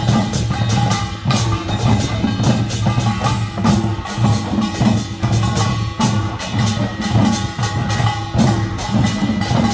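Korean traditional percussion band (pungmul-style) playing a fast, driving rhythm of dense, rapid strikes without a break.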